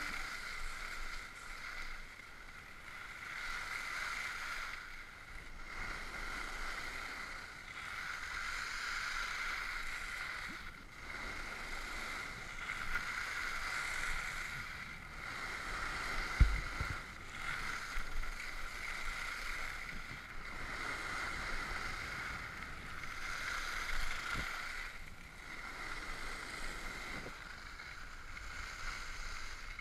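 Skis hissing over snow, swelling and fading every couple of seconds as the skier turns, with a dull thump about halfway through.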